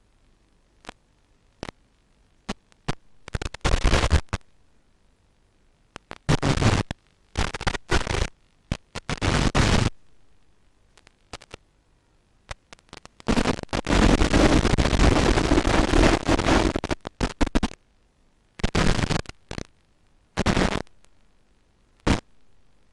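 Bursts of static hiss and crackle on the empty audio channel of a 5.8 GHz analog FPV video receiver, recorded by the ground DVR. They come and go irregularly, from short clicks to a long stretch of hiss about halfway through, with near silence between.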